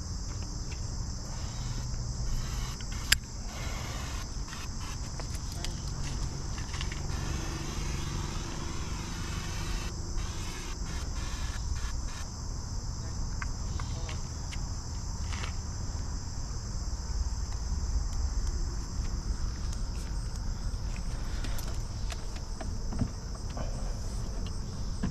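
Steady high-pitched chorus of insects, over a low rumble, with a single sharp click about three seconds in.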